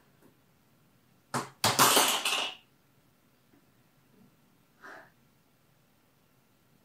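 A woman's loud, breathy exclamations without words: a short one a little over a second in, then a longer one lasting about a second, and a faint breath near five seconds in.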